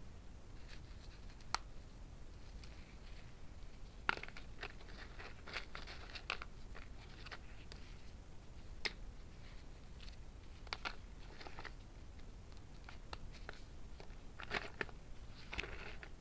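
Roasted multani mitti (fuller's earth clay) being bitten and chewed, giving irregular sharp crunches, some in quick clusters; the loudest snaps come about four and nine seconds in.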